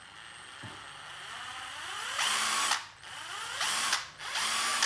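12 V cordless impact driver run with no load in three trigger pulls: the motor whines up slowly over about two seconds, then runs loud and rattling at full speed for about half a second and stops; two shorter full-speed runs follow a second or so apart.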